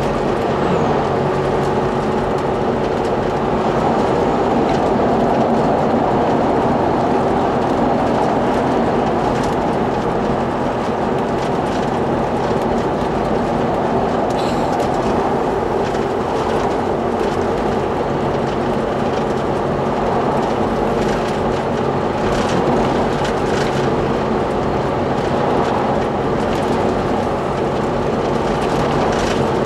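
Steady road noise inside a vehicle's cabin at highway speed: a constant drone of engine and tyres, with wind rushing past the windscreen.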